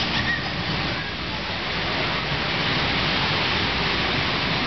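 Bumper car ride in motion: a steady rushing noise.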